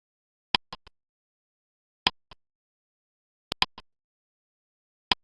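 Ticking clock countdown-timer sound effect: a sharp tick about every one and a half seconds, four in all, each followed by one or two fainter clicks, with dead silence between.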